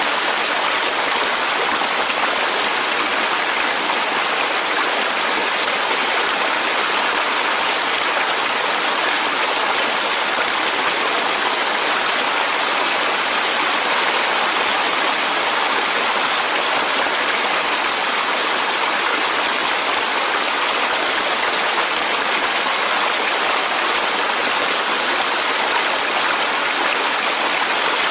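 Clear mountain valley stream flowing over rocks, a steady rushing and babbling of water.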